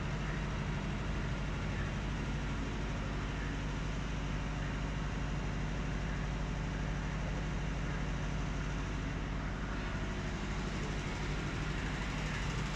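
An engine running steadily at idle: a constant low hum that holds the same pitch throughout.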